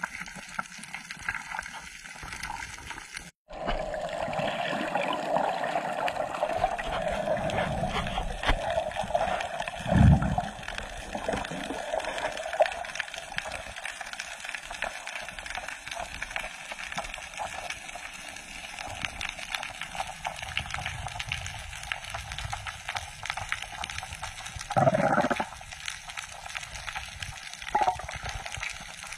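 Underwater sound picked up by a diving camera: steady water rushing and gurgling with many small clicks, and a loud dull low thump about ten seconds in.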